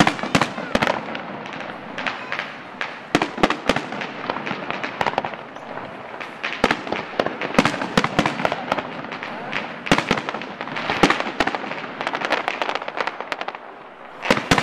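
Aerial fireworks display: an irregular run of sharp bangs from bursting shells, often several a second, over continuous crackling.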